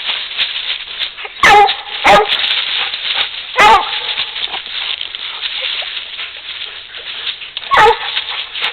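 Coon dog barking at a raccoon: four loud, sharp barks, each dropping in pitch. Two come close together early, then one more, then a last one after a longer pause. A steady hiss runs underneath.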